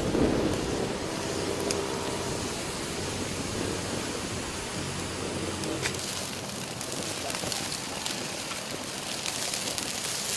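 Water at a rolling boil in a wok with a whole chicken, bubbling steadily, with a few sharp crackles from the wood fire beneath.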